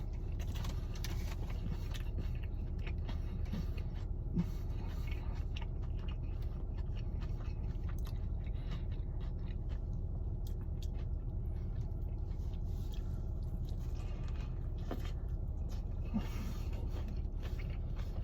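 A person biting into and chewing a fried chicken sandwich close to the microphone, with small scattered crunches and mouth clicks, over a steady low rumble inside a car.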